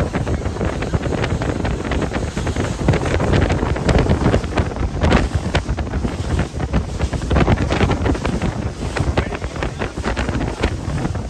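Loud wind buffeting the microphone over the rush of water and spray along the hull of a fast-running bay boat, in constant gusts.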